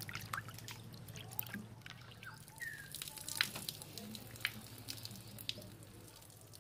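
Hands washing Bombay duck (lote fish) in water in a metal bowl: splashing, dripping and sloshing as the soft fish are squeezed and turned. A steady low hum runs underneath.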